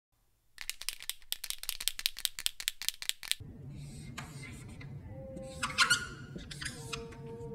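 Instrumental post-rock soundtrack that opens with a dry rattle of quick, irregular clicks. A little over three seconds in, a low hum and long held tones come in, with high chirping sounds above them.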